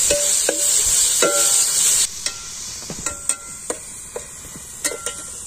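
Sliced tomatoes and onions sizzling in hot oil in a metal kadai, stirred with a steel ladle that scrapes and clinks against the pan several times. The sizzle is loud at first and drops suddenly about two seconds in, leaving mainly the ladle clinks.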